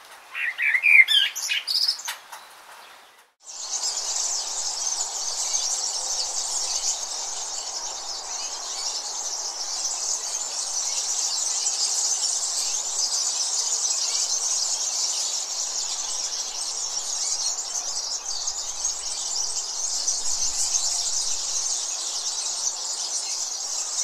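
A bird gives a burst of quick, loud chirps in the first couple of seconds. After a brief break comes a steady, high-pitched insect chorus that holds unchanged to the end.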